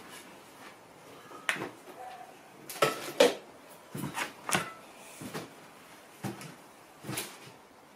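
About ten light, irregular knocks and clinks of kitchen items being handled and set down on a cooking table.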